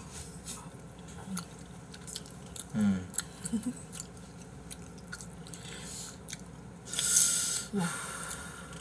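Mouth sounds of eating pasta with chopsticks: soft chewing and small wet smacks and clicks, with a short noisy slurp of noodles about seven seconds in.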